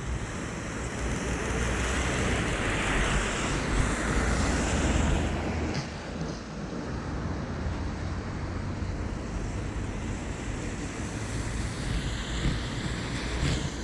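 Rainy city street ambience: a steady rush of rain and tyres on wet pavement, with a louder swell over the first few seconds that eases off about six seconds in.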